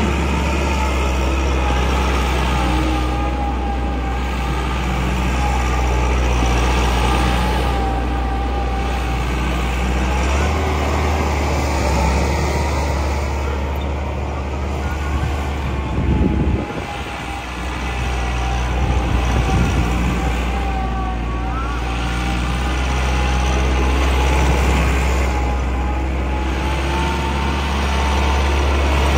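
Massey Ferguson 385 tractor's diesel engine running under load as the tractor turns tight circles on loose dry soil, with a deep steady drone and a thin whine that wavers in pitch. The sound dips briefly about halfway through.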